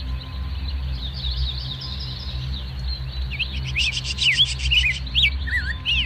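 Several birds chirping and twittering in quick overlapping calls, many sweeping down in pitch. About four seconds in there is a rapid dry trill of clicks, all over a steady low rumble.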